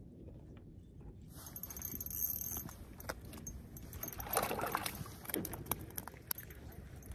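Spinning reel being cranked as a hooked fish is brought up through the ice hole. A thin whine starts about a second and a half in, a louder rustling scrape comes around the middle, and small clicks are scattered through it, all over a low steady rumble.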